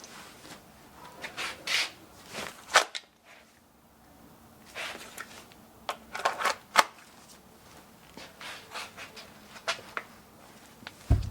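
Kydex holster on pull-the-dot soft loops being handled at the belt: rustling of fabric and belt with a series of sharp clicks, the loudest about three and seven seconds in.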